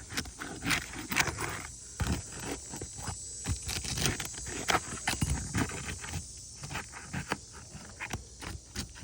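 Asphalt roof shingle tabs being pried up with a shingle-lifting tool: irregular scrapes, crackles and clicks as the tabs pull loose from their seal.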